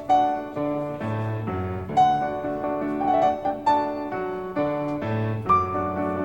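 Background piano music: a melody of struck notes over low bass notes, each note starting about every half second.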